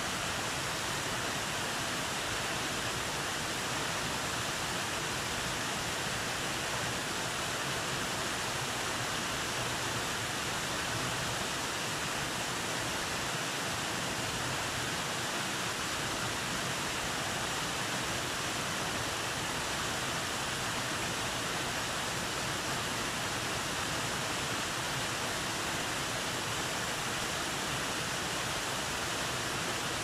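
Small waterfall pouring over rocks: a steady, even rush of falling water with no change in level.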